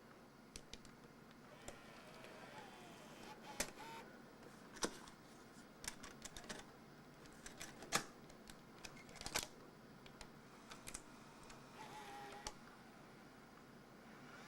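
Scattered sharp clicks and snaps of a Canon ES2000 Hi8 camcorder being handled and its cassette compartment opened and a Hi8 tape loaded, with a short faint whine near the end.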